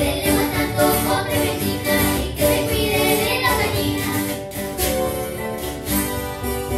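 Children singing a carranga song together over strummed acoustic guitars; the voices stop about four and a half seconds in and the guitars carry on alone.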